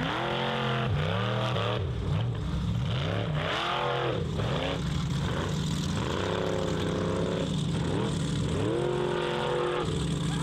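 Formula offroad race buggy's engine revving up and down in quick throttle bursts, about one a second. Twice in the second half it holds at high revs for about a second, over a steady lower engine drone.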